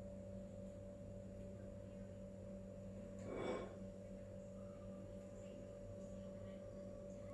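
Faint steady hum made of a few fixed tones, with a brief pitched sound rising out of it about three and a half seconds in.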